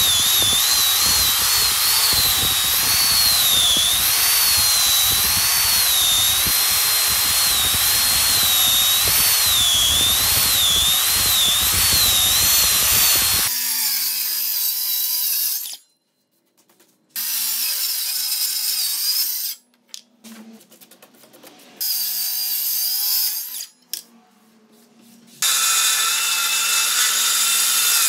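Angle grinder fitted with a sanding disc running under load as it sands a wood slab, its high whine wavering up and down in pitch for about half the time before it cuts off. After a few short bursts and gaps, a Milwaukee M18 FUEL cordless circular saw starts cutting through a board near the end.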